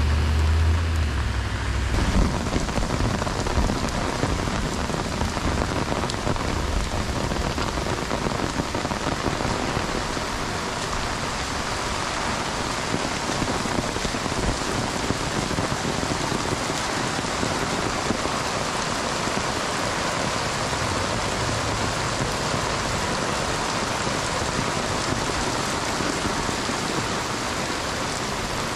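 Heavy downpour: a steady, dense rain hiss. Under it for the first two seconds there is a vehicle's low rumble.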